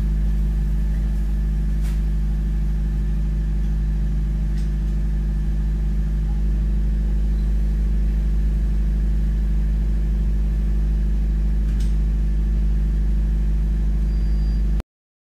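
Steady low mechanical hum, like a motor or engine running at constant speed, with a few faint clicks; it cuts off suddenly near the end.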